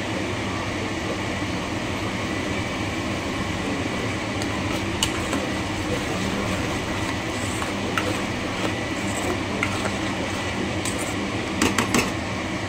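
Steady hum and rushing noise of a running motor, with a few light clicks near the end.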